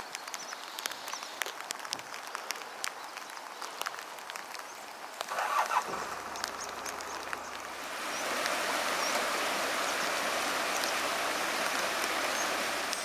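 Steady rushing noise of flowing water, growing louder and fuller about eight seconds in, with scattered light clicks and taps in the first half.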